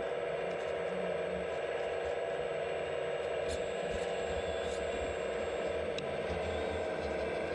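The hydraulic pump and drive of a radio-controlled scale Liebherr A918 excavator run steadily with a dense mechanical whine while the clamshell grab is worked, with a few faint ticks.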